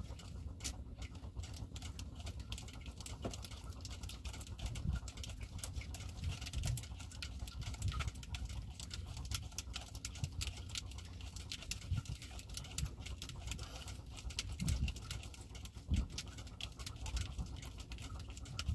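Sea water lapping against the hull of a small wooden boat: a steady low rumble with many light, splashy ticks and a few soft low thumps.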